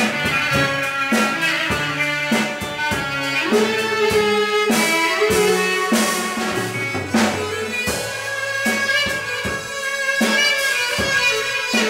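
Live Greek folk band playing: a clarinet carries the melody over keyboard, guitar and a drum kit keeping a steady beat.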